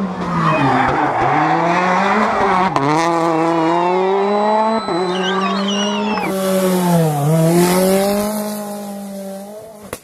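Rally car engine at high revs coming through a tarmac bend, its pitch dipping and climbing again about four times as the driver works the throttle and gears. Tyres squeal briefly in the middle, a rushing hiss joins about six seconds in, and the car fades away near the end.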